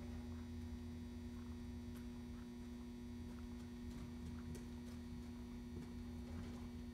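Steady low electrical hum, with faint scattered ticks over it.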